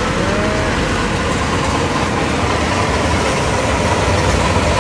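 Tractor diesel engine running steadily at close range, as heard from the driver's seat.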